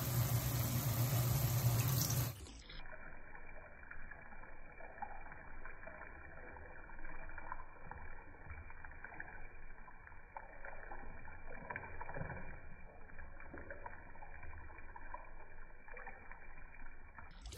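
Water poured in a thin stream into a wok of chicken simmering in sauce, heard as a dull, muffled trickle with faint irregular splashes. For about the first two seconds a louder steady hiss with a low hum plays, then cuts off abruptly.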